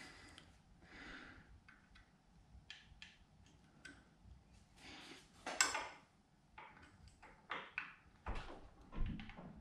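Small screwdriver working at the throttle gear linkage in a 1979 Johnson 15 hp outboard's tiller handle to get a pin out: a scatter of light metal clicks, taps and scrapes, the loudest a little past halfway.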